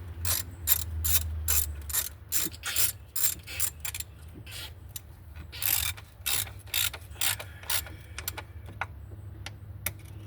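Hand ratchet wrench clicking in steady strokes, about two to three clicks a second, as a fastener is tightened down, with a brief pause near the end.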